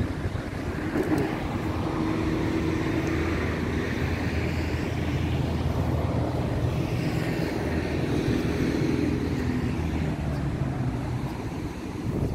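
Street traffic: the engine of a motor vehicle running close by, a steady low hum with road and wind noise.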